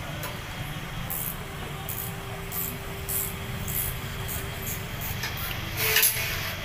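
Honda City steering rack shaft rocked by hand in its rack-and-pinion housing, knocking and clattering about twice a second, with the loudest knock about six seconds in. The play comes from a broken bushing inside the rack, the cause of the steering clunk over bumps.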